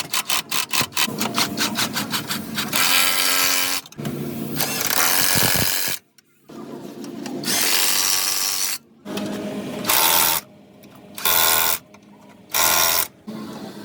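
A power tool, working on car suspension parts, ticks rapidly at about five clicks a second for the first couple of seconds. It then runs in six separate bursts, the last three short and evenly spaced.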